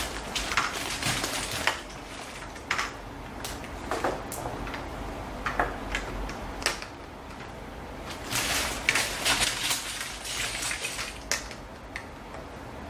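Plastic LEGO bricks clicking and clattering as they are picked through in a zip-lock plastic bag and pressed onto a baseplate. The bag rustles near the start and again about two-thirds of the way in, with scattered single sharp clicks in between.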